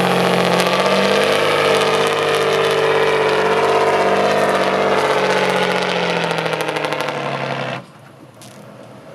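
Off-road trial truck's engine running loud and fairly steady, its pitch wavering a little. It cuts off suddenly near the end, leaving a much quieter background.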